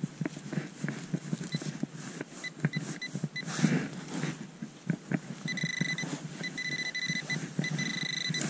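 Handheld metal-detecting pinpointer beeping at one fixed high pitch: a few short beeps at first, then, from about five seconds in, fast and almost continuous beeping as the probe closes in on a buried metal target in the loose soil. Under it are soft knocks and rustles of gloved hands breaking up clods of earth.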